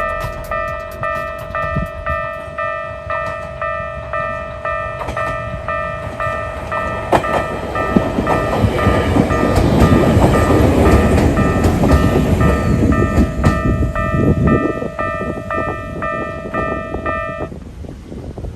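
Level-crossing alarm sounding the slow Keikyu-type electronic warning tone, a pulsing chime repeating a little under twice a second, while an electric train rumbles through the crossing with a few clicks of wheels over rail joints. The train is loudest in the middle and then fades, and the alarm stops shortly before the end.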